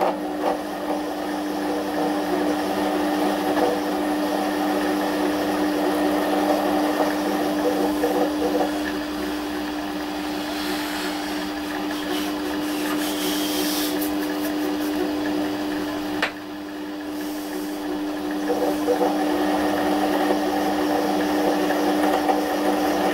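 Güde GMD 400 mini metal lathe running at low speed with a steady motor and gear hum while a parting tool cuts a groove into a steel threaded stud. A higher, hissing cutting sound joins for a few seconds about ten seconds in, and a click near the middle is followed by a brief dip in level.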